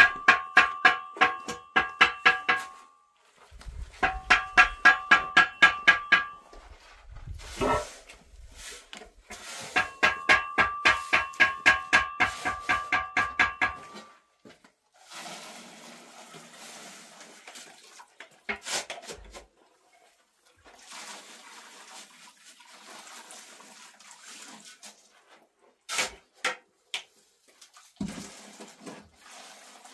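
A wooden pole struck rapidly down into a metal container in three bursts, about six ringing strikes a second. Then a shovel scrapes and scoops sand and cement into a metal wheelbarrow, with a couple of sharp knocks near the end.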